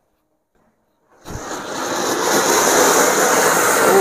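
An anar (flower pot) fountain firework catches about a second in with a sudden rush and then sprays sparks with a loud, steady hiss.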